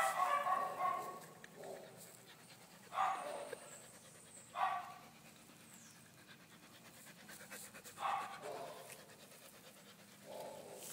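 Labrador retriever breathing in short, breathy pants and huffs up close, five brief bursts a few seconds apart.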